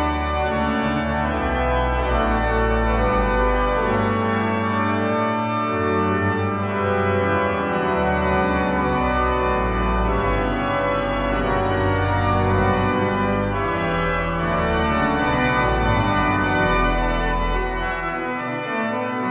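Pipe organ playing slow, sustained chords that change every second or two over deep bass pedal notes.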